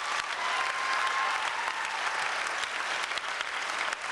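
Audience applauding, a dense steady patter of many hands clapping. A thin steady whistle-like tone sounds over it and stops after about a second.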